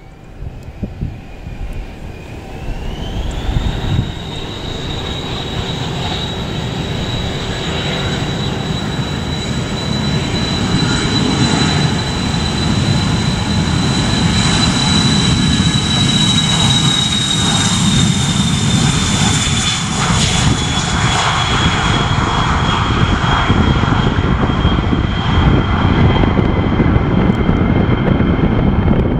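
Dassault Falcon 2000's twin turbofan engines spooling up to takeoff power: a high whine rises in pitch about three seconds in and then holds. A deep rumble builds through the takeoff roll, and the whine drops slightly in pitch as the jet passes.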